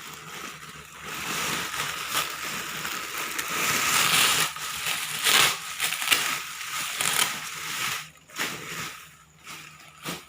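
Packaging crinkling and rustling as it is handled and pulled open, a dense run of crackles that is loudest in the middle and eases off near the end.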